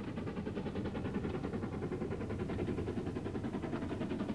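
A machine running steadily with a fast, even pulse.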